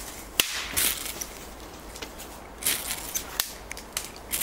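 Fire steel (ferrocerium rod) scraped hard with a metal striker in several quick rasping strokes, each about a second apart, throwing sparks onto birch-bark tinder to light it.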